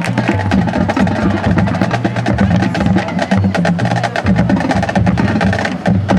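Marching band music with fast, dense percussion: wood-block-like clicks over a pulsing bass line.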